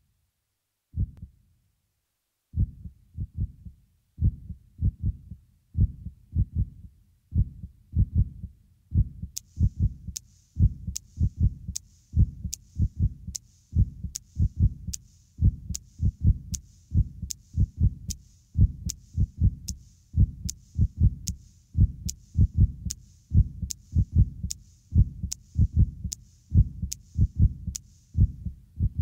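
Soundtrack of a low, heartbeat-like double thump repeating steadily, joined about nine seconds in by an even, sharp ticking with a brief hiss at each tick.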